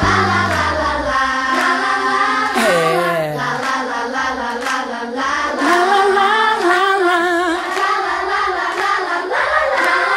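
Singing: long sung notes that waver and glide in pitch, in a musical soundtrack.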